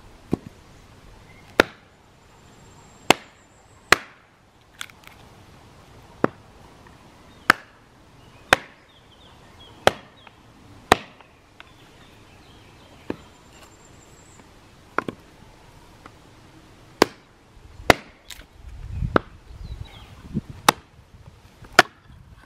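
Prandi hatchet chopping into short logs on a wooden stump, splitting them: sharp single blows roughly a second apart, about nineteen in all, coming faster near the end.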